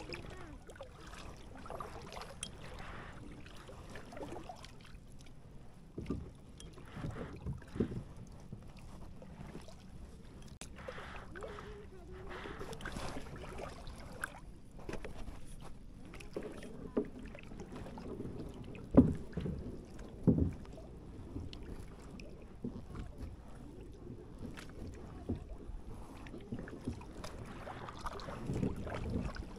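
Kayak being paddled on a lake: quiet paddle strokes and splashing water, with occasional short knocks. The two loudest knocks come a little over a second apart past the middle.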